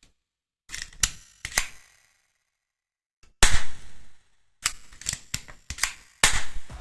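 Miniature metal spring pistol, a small copy of the Beretta 92, being cocked and fired: a run of sharp clicks and snaps, the loudest about three and a half seconds in, with several quicker ones near the end.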